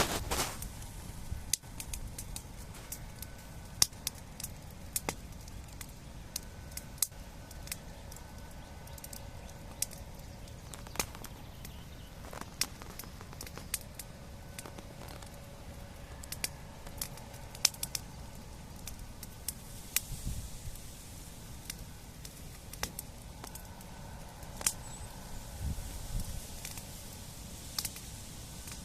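Bonfire crackling, with sharp pops at irregular intervals over a low steady rumble.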